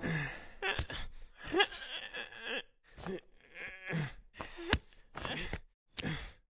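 A cartoon character's short grunts and groans of effort, one after another, with a few sharp clicks between them.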